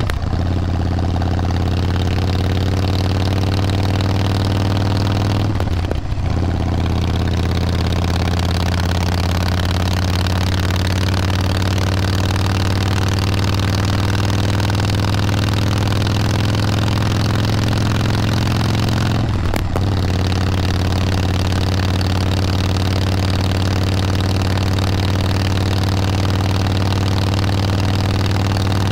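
Motorcycle engine running steadily under way, with wind noise. Its note dips briefly and shifts in pitch about six seconds in and again near twenty seconds.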